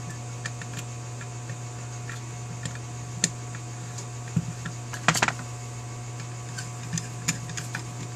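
Scattered small metal clicks and taps as a brass plug with its gasket is fitted into a Holley 4000 carburetor's float bowl and turned with a screwdriver, with a quick cluster of sharper clicks about five seconds in. A steady low electrical hum runs underneath.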